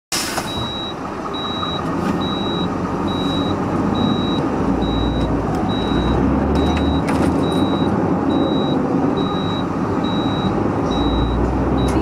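Cab noise of a heavily loaded Swiss Army IVECO 6x6 truck climbing a mountain pass, its diesel engine pulling steadily under load. A short high-pitched beep repeats a little more than once a second.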